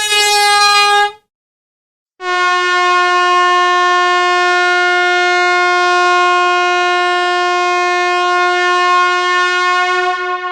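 Handheld gas air horn sounding one short blast of about a second, then, after a second's pause, a long steady blast that begins to fade near the end. The long blast is slightly lower in pitch.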